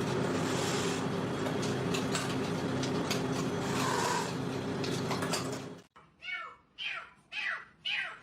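A steady, noisy rumble with a low hum, then after a sudden cut a domestic cat meowing repeatedly, short rising-and-falling meows about two a second.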